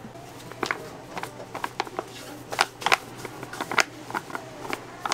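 Irregular light clicks and taps, a few sharper than the rest, over a steady low hum.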